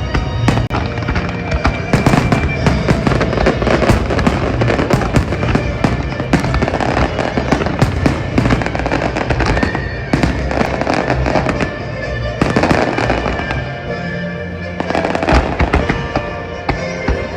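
Fireworks bursting and crackling in rapid, dense volleys, over loud music with steady tones.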